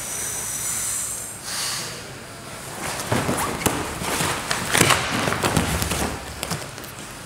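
Jiu-jitsu grapplers scrambling on a mat: gi fabric rustling and bodies thumping and scuffing. A dense flurry of thuds and slaps runs from about three to six seconds in, as they come up in a takedown.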